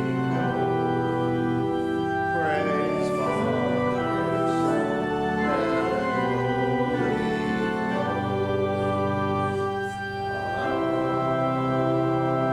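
Church organ playing slow sustained chords that change every second or two, offertory music.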